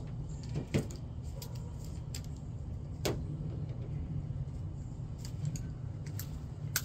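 Hand tools clinking: a few sharp metal clicks, the loudest about a second in, about three seconds in and near the end, over a steady low hum.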